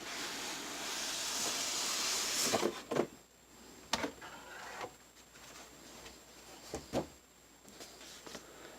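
Paper rustling as it is handled for about two and a half seconds, then a few soft knocks and clicks.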